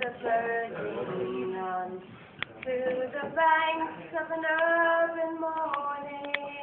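A woman's voice singing slow, drawn-out notes, with several held for a second or more.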